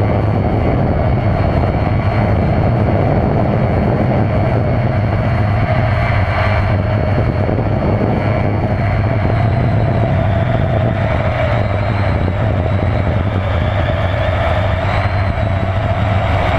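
Electric motor and propeller of a battery-powered model airplane running steadily in flight, a steady whine over heavy wind rush on the onboard GoPro's microphone.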